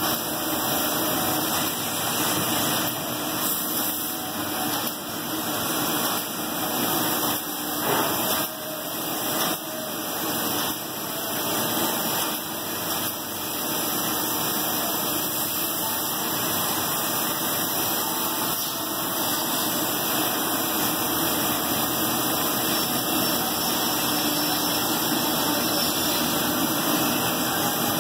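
Biesse Rover 30 CNC router running steadily as its spindle head machines a wood panel. The noise comes and goes unevenly over the first half, then settles into a steady run.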